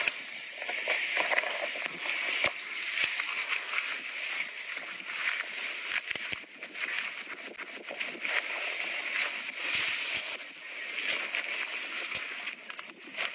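Steady rushing hiss of flowing water, like a stream or waterfall, heard through a phone microphone, with scattered small clicks and crackles of handling.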